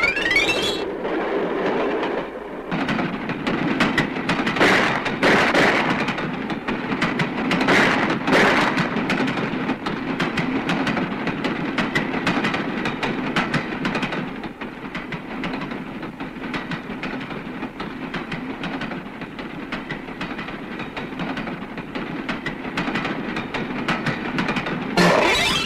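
A moving train: wheels clattering over the rails with a steady rattle and rumble.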